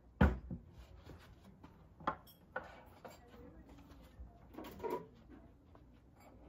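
Household knocks and clatter: one sharp knock about a quarter second in, a lighter knock around two seconds, then a brief rustle and a short cluster of clatter near five seconds.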